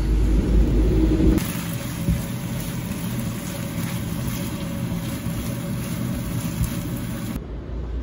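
Street rumble for about the first second, then shredded pork and green peppers sizzling as they are stir-fried in a frying pan: a steady crackling hiss over a low hum.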